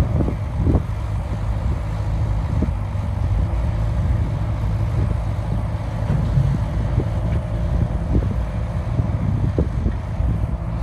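Heavy diesel engine of earth-moving machinery running steadily with a low rumble, with scattered short knocks.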